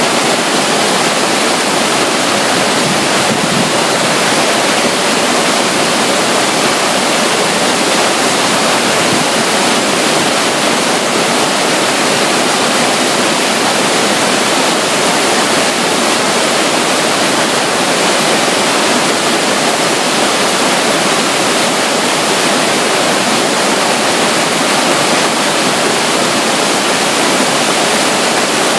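Steady rush of flowing water from a tiny water flow beside a river near a waterfall, loud and even with no change.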